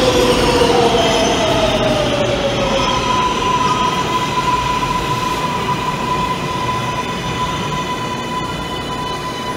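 Kawasaki R142A subway train slowing through an underground station: rumbling, with a motor whine falling in pitch over the first few seconds, then a steady high squeal from the wheels that holds until near the end.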